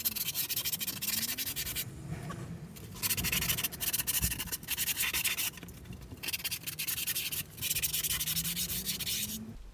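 A file scraping along the edge of skateboard grip tape, sanding the grip down around the deck's edges so it doesn't lift. Steady rasping strokes with short breaks about two seconds in and again later, stopping just before the end.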